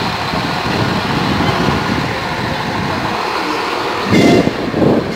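RA2 diesel railbus moving slowly past a station platform, a steady rumble of engine and wheels. A sudden louder burst comes about four seconds in.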